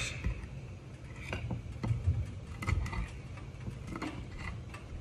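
Knife knocking on a cutting board as shrimp are cut into bite-sized pieces: irregular knocks, about two a second.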